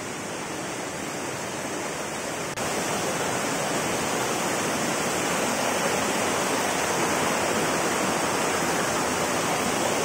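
Steady rushing of water from a rocky forest stream, growing louder about two and a half seconds in.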